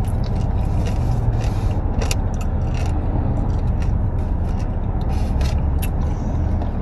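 Steady low rumble of a car's engine idling, heard inside the cabin, with scattered light clicks and rustles.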